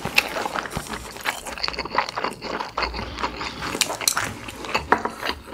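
Close-miked chewing of a mouthful of food, with many short, irregular mouth clicks.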